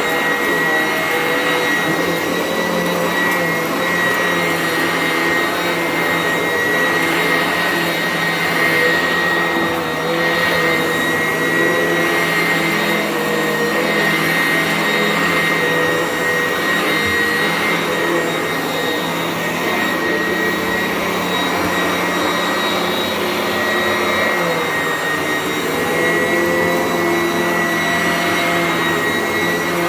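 Sanitaire vacuum cleaner running continuously, a steady motor noise with a high-pitched whine over a low hum that shifts slightly in pitch now and then as it is pushed around.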